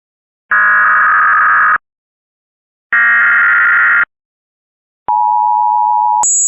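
Emergency Alert System broadcast tones. First come two one-second bursts of the SAME header's harsh data screech, about a second apart. About five seconds in, the steady two-tone EAS attention signal starts, then jumps to a much higher pitch near the end.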